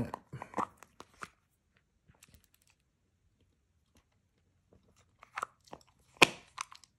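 Scattered small clicks and mouth noises as a nicotine-lozenge container is handled and a spearmint lozenge is put in the mouth. There is a cluster of clicks in the first second, then near the end another cluster with one sharp click.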